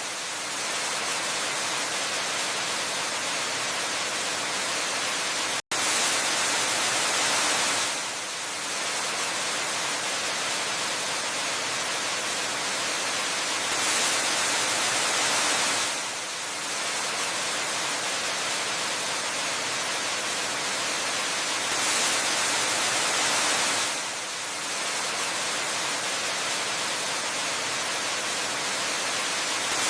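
Waterfall water falling in a steady, dense rush, swelling and easing in a regular cycle about every eight seconds. A split-second dropout comes about six seconds in.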